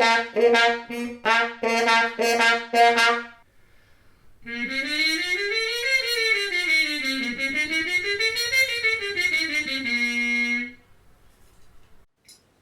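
Muted trumpet playing a short phrase of detached notes, showing the timbre a mute gives. After a short pause comes a buzzy brass tone that glides smoothly up and down twice and settles on a held low note.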